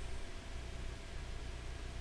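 Faint, steady low hum and hiss of background room tone, with no distinct events.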